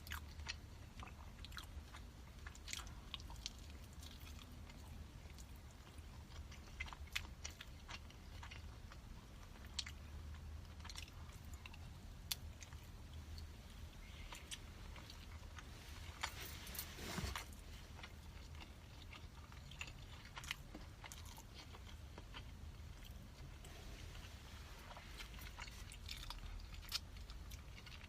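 A person chewing sticky rice close to the microphone, with scattered small wet mouth clicks over a low hum. The food is a salted-egg-yolk pork zongzi. About 17 seconds in there is a brief, louder rustling noise.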